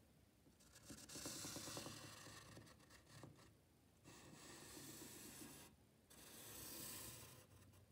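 Faint scratching of a wooden pencil drawing lines on paper, in several strokes of about a second each.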